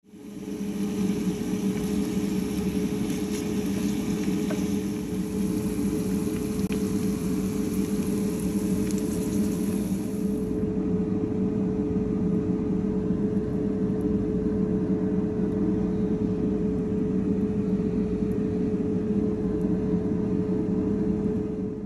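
Air fryer fan running with a steady hum, over onions sizzling in oil in a pan. The sizzle stops about halfway through, leaving the hum.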